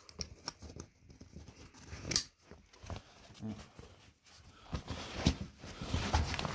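Rustling and small knocks from a military rucksack and its dry-sack lining being rummaged through, in irregular bursts, with louder rustles about two seconds in and again about five seconds in.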